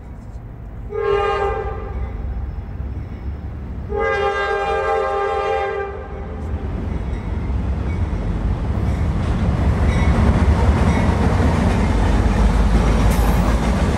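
Norfolk Southern diesel locomotives at the head of a double-stack freight train sound their air horn. There is a short blast about a second in and a longer one about four seconds in. Then the low engine rumble and the wheel-on-rail noise build as the locomotives pass, loudest near the end.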